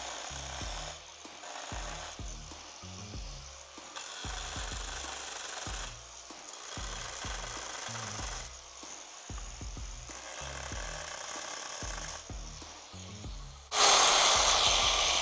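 Angle grinder with a diamond blade cutting into a thin ceramic tile strip in a string of short passes, each a second or two long. About a second before the end the sound jumps to a much louder, steady grind.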